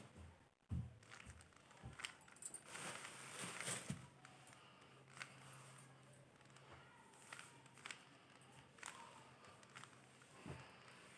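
Faint, scattered plastic clicks and rustles of a Rubik's cube being turned by hand, with a faint steady hum in the middle.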